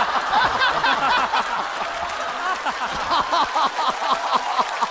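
Studio audience laughing, many voices overlapping, easing off a little toward the end.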